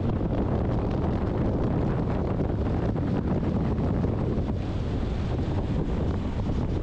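Steady wind buffeting the microphone of a camera on a moving motorcycle, over a low road rumble.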